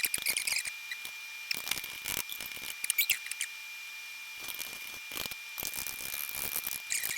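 Irregular scrapes and clicks of a kitchen utensil against a dish as cookie mixture is stirred, quieter for a couple of seconds in the middle, over a faint steady high whine.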